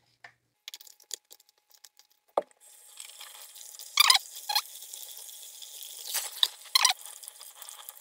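Small handling sounds, then a kitchen tap starts running about two and a half seconds in, its stream splashing into a plastic bowl as a raw fish fillet is rubbed and rinsed under it, with several louder splashes.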